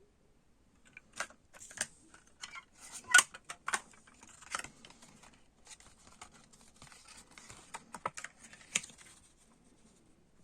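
Hands handling a cassette tape in its plastic case: a run of sharp plastic clicks and light rustling, the loudest click about three seconds in, fading out a second before the end.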